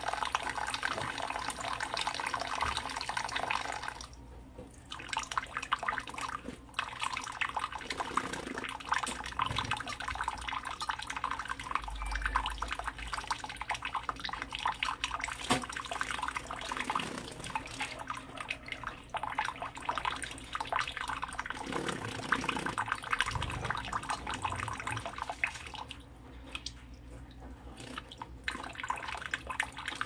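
A thin stream of tap water splashing into cupped wet hands, running steadily with two brief quieter spells, about four seconds in and near the end.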